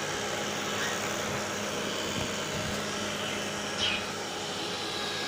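Household vacuum cleaner running steadily, with a brief high chirp about four seconds in.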